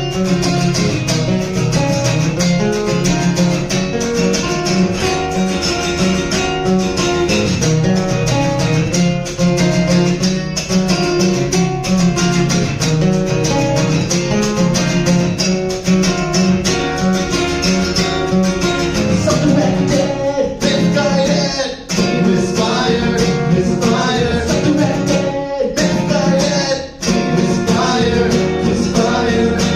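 Live band music led by guitar, loud and continuous with a busy rhythmic beat.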